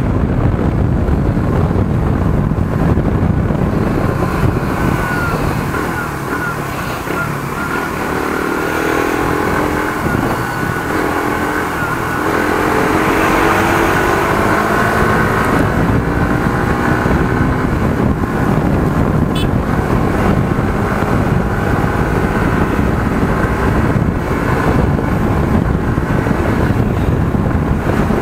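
Suzuki GSX-R150's single-cylinder engine running under way through traffic, its note shifting in pitch as the bike slows and picks up speed, over a constant rush of wind noise on the bike-mounted microphone.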